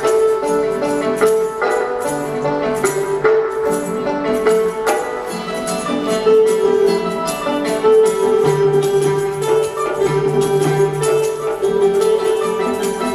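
Traditional Vietnamese music accompanying a water puppet show: a sustained melody line over rapid, steady clicking percussion.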